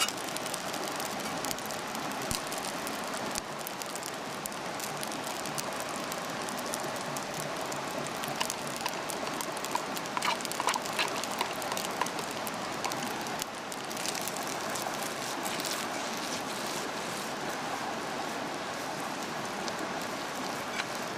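Spaghetti, bacon and egg mixture sizzling steadily in a frying pan over a campfire, with a short cluster of sharper clicks about ten seconds in.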